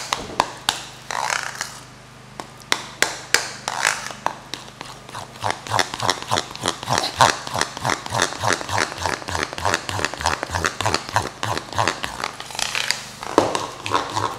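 A spoon stirring thick icing in a bowl: scraping and knocking against the bowl. The knocks speed up about five seconds in to a fast, even beat of about five strokes a second, with dull thuds under them.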